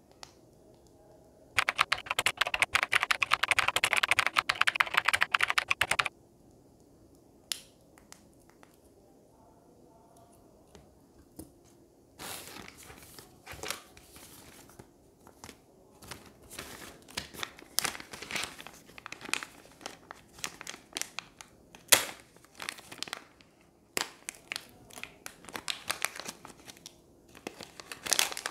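A burst of rapid clicking lasting about four seconds near the start, then plastic and anti-static parts bags crinkling and rustling as they are handled, from about twelve seconds in.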